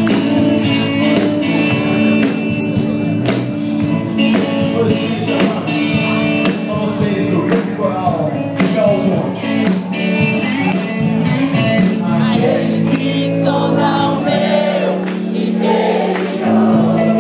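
Live rock band playing loud, with electric guitars, a steady beat and singing.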